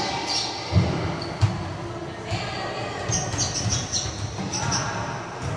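A volleyball being struck and bouncing on a wooden gym floor, two sharp thuds about a second in and softer knocks after, echoing through a large indoor hall with voices in the background.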